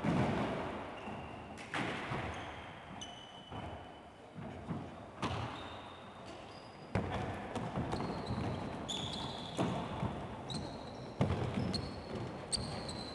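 Football being kicked and bouncing in an echoing wooden-floored sports hall, with several sharp kicks that ring on in the room, and sneakers squeaking on the floor as players turn.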